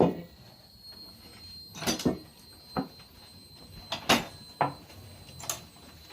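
A series of irregular sharp knocks and thumps, about six in all, spaced roughly a second apart, over a faint steady high-pitched tone.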